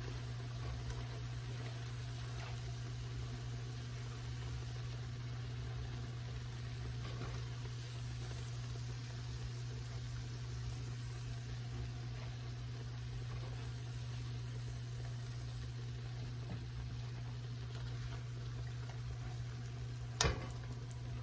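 Hot oil sizzling steadily as battered oyster mushroom pieces fry in a pan, over a constant low hum. A single sharp knock comes near the end.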